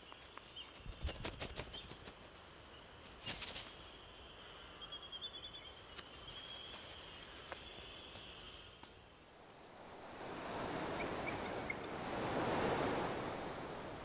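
Faint outdoor ambience at a seabird colony: scattered light clicks and a thin, high, warbling bird call over the first half. About ten seconds in, a rushing noise swells up, then eases off.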